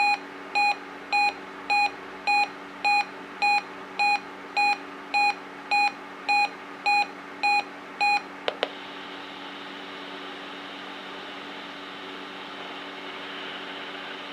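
Weather radio receiver's alert beeping for the NOAA Weather Radio required weekly test: a run of short, evenly spaced electronic beeps at one pitch, nearly two a second, that stops about eight seconds in. Two quick clicks follow, then a steady radio hiss with a low hum.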